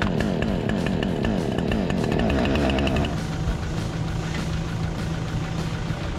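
A chainsaw engine running at high revs, then dropping to a steady idle about three seconds in.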